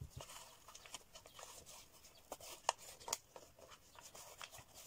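Faint rustling and crinkling of paper with scattered small clicks and crackles, from hands handling adhesive-backed decorative paper and its peeled-off backing sheet on a juice carton.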